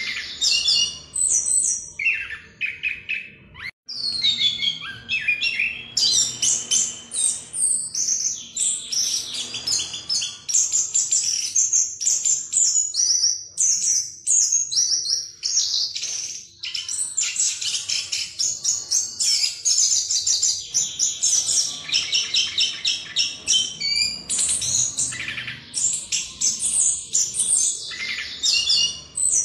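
Chestnut-capped thrush (anis kembang) singing a long, rapid, nearly continuous run of varied high notes and trills, the rolling 'ngerol' song, with only a short break about four seconds in.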